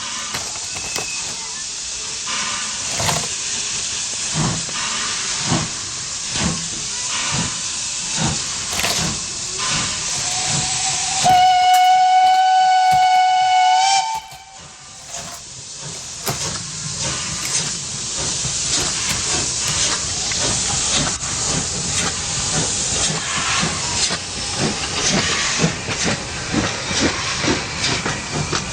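Steam locomotive running with a steady hiss and repeated beats, and its steam whistle blowing once for about three seconds, starting about eleven seconds in and rising slightly in pitch just before it cuts off.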